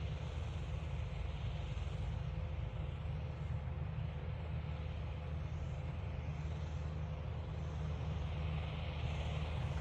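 Farm tractor engine running steadily, a continuous low rumble with a steady hum over it.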